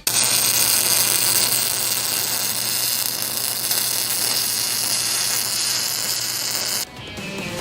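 Welding arc buzzing and hissing steadily, with a low electrical hum under it, then cutting off about seven seconds in.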